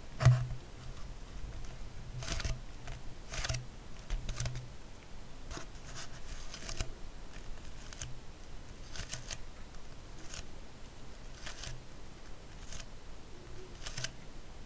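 Empty plastic drink bottle being handled close to the microphone: irregular short crackles and taps, with one louder knock just after the start.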